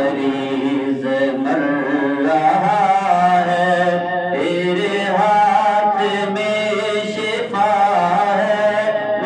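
Naat recitation: a male voice chanting in long, sliding melodic phrases, with a steady low hum underneath.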